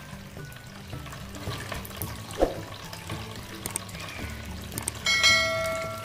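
Homemade tabletop waterfall fountain running, water trickling and splashing steadily. A bright bell chime rings out about five seconds in.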